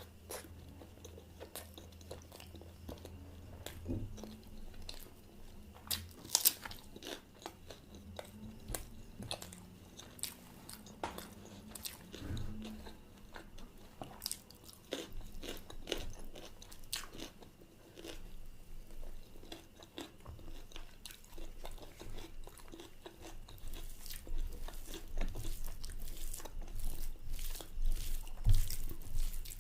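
A person eating close to the microphone: bites and chewing with many small, irregular crunchy mouth clicks, getting louder and busier near the end.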